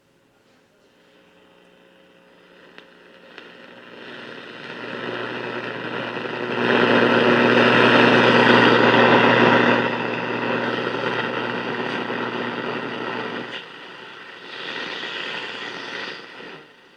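1945 Westinghouse H-126 Little Jewel six-tube AM radio hissing with static and hum from its speaker, swelling over several seconds, loudest in the middle, then falling away in steps near the end.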